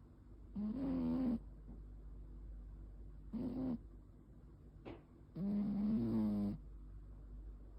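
A sleeping domestic cat snoring: three separate pitched snores, one on each breath, a few seconds apart. The last is the longest, about a second. Just before the last snore comes one brief sharp noise.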